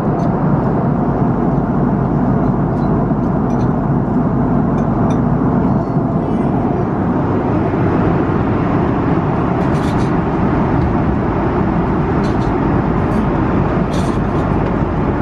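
Steady cabin noise of an Airbus A330-300 in cruise flight, with a few faint clicks in the second half.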